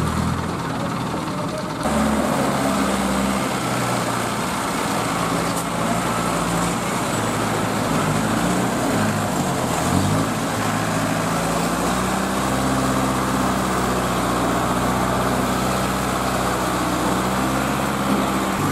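Diesel engines of Escorts Hydra 14 mobile cranes running, their speed stepping up and down as they work. The sound changes abruptly about two seconds in.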